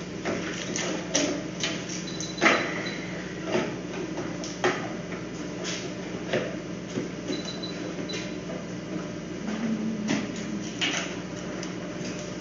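Scattered knocks, clicks and clinks of equipment being handled in a veterinary exam room, over a steady low hum, with a faint short high tone twice.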